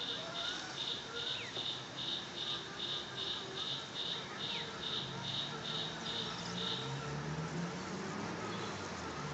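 An insect chirping in even pulses, about three a second, that stop about seven seconds in. From about halfway through, the low hum of the Axial SCX10 Honcho RC crawler's electric motor and gears comes in, changing pitch as it drives close by.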